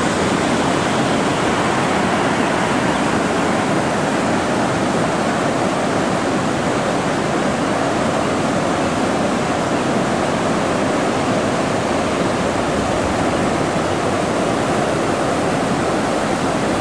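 Floodwater rushing steadily over a road, a loud, even rush of moving water.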